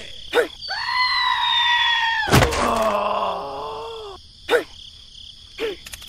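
Cartoon-style voice effects: a long cry that slides slowly down in pitch, a sharp thump about two and a half seconds in, then a lower groaning voice falling away. Short falling chirps come before and after.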